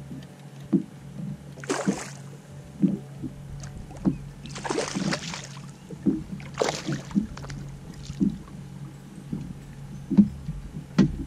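Hooked smallmouth bass splashing at the water's surface beside the boat three times as it is reeled in, then small knocks as it is lifted aboard, over a low steady hum.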